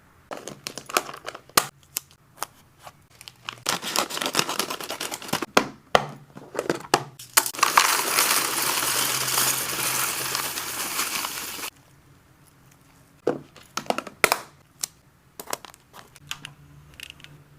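Plastic snack packaging crinkling and rustling as hamster snacks are packed away, in irregular bursts with sharp clicks and taps. A longer continuous rustle builds in the middle and stops abruptly, followed by a few scattered clicks.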